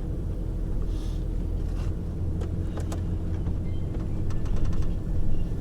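Steady low road and engine rumble inside a moving bus, with a few light rattles and clicks about halfway through and again near the end.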